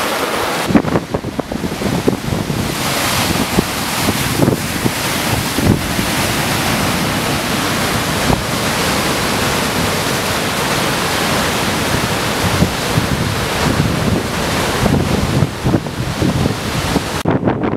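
Large open-ocean storm swell breaking and surging over rocks below the cliffs, with strong gusty wind buffeting the microphone.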